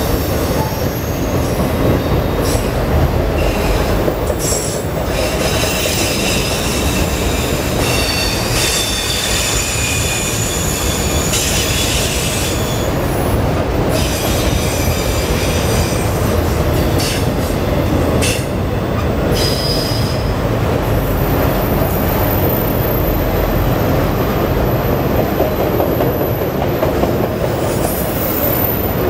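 Freight train of autorack cars rolling past: a steady rumble of steel wheels on the rails, with thin high-pitched wheel squeal coming and going through the first two-thirds.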